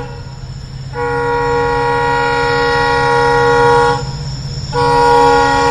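Diesel locomotive horn blowing in long blasts: one blast ends just after the start, a second lasts about three seconds, and a third begins near the end. A steady low engine rumble runs underneath.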